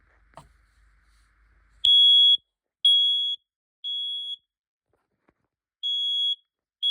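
Smoke alarm going off after being triggered with canned test smoke, sounding the temporal-three evacuation pattern: starting about two seconds in, three high-pitched half-second beeps, a pause, then the next set of beeps begins.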